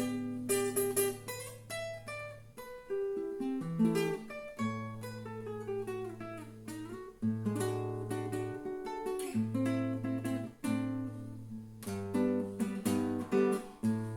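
Solo acoustic guitar fingerpicking a lively Brazilian choro melody over repeated held bass notes, with a falling run of notes about halfway through.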